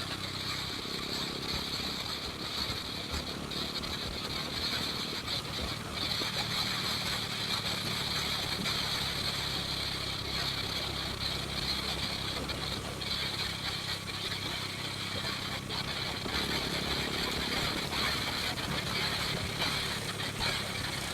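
A vehicle engine running steadily, with a continuous high-pitched buzz over it.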